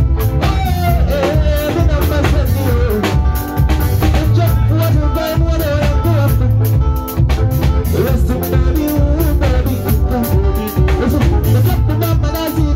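Live band music played through a PA: a man singing into a microphone over a drum kit and a steady bass beat.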